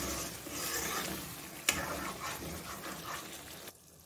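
A spoon stirring thick chicken curry in a kadai over the flame, with a steady sizzle and bubbling and one sharp clink of the spoon against the pan about a second and a half in. The sound cuts off abruptly shortly before the end.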